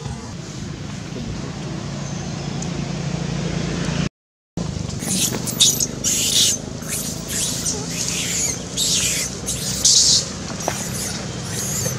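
Baby long-tailed macaque screaming in distress as an adult female holds it down on the ground: a rapid string of shrill, high-pitched shrieks that starts after a brief break about four seconds in. Before the break there is only a steady low hum.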